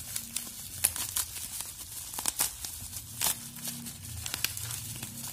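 Packaging being crinkled and torn open by hand, a run of irregular sharp crackles and rustles.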